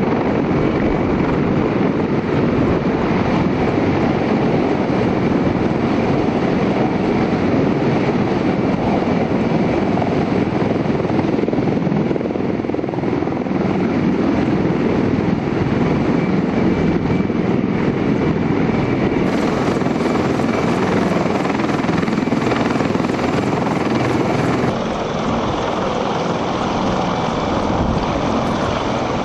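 CH-53E Super Stallion heavy-lift helicopter running, a loud steady noise of its seven-blade rotor and three GE turbine engines, slightly quieter about 25 seconds in.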